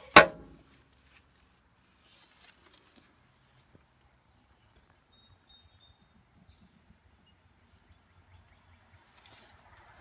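A steel access door on a John Deere 750B bulldozer shut with a single sharp metallic clang, ringing briefly. Then faint rustling and a short high bird chirp in the middle.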